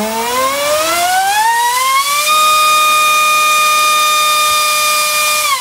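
Black Mantis 2847 3900kv brushless inrunner motor spinning a small 4.1x4.1 propeller on a thrust stand: a loud whine that rises in pitch for about two seconds as it spools up, holds steady at top speed, then falls away near the end as it spins down.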